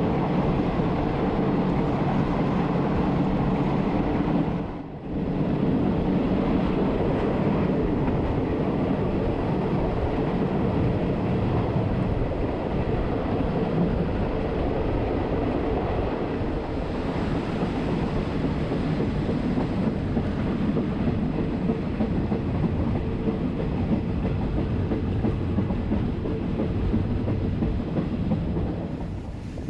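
Train running along the track: a steady rumble with a low steady drone and some wheel clatter. It dips briefly about five seconds in.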